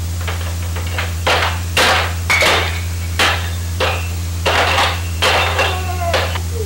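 A series of irregular sharp knocks, about a dozen, some with a short ringing after them, typical of a baby banging a hard toy on a plastic high-chair tray. A steady low hum runs underneath.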